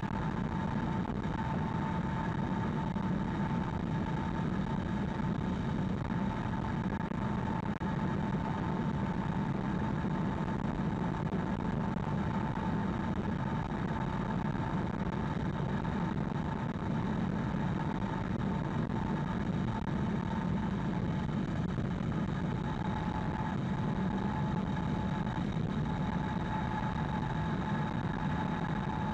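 Steady tyre and road noise from a 2020 Hyundai Ioniq Electric cruising at expressway speed, heard from inside the car, with a thin steady whine over it.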